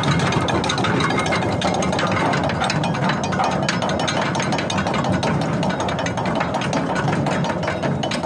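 Ship's anchor chain running out in free fall over the windlass gypsy and through the chain stopper, a continuous, fast clattering rattle of steel links with a steady mechanical hum beneath.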